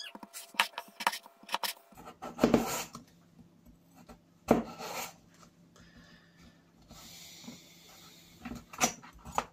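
A large kitchen knife slicing a peeled potato into chips on a plastic chopping board, giving a run of short knocks and scrapes with three louder knocks of the blade on the board.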